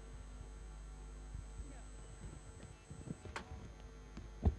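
Steady electrical mains hum, with a few faint clicks and rustles and a single low thump near the end.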